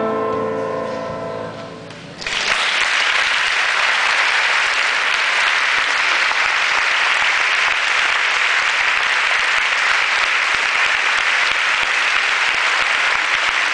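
The last piano chord of a four-hand piano duet dies away, and about two seconds in a large audience bursts into steady applause that carries on.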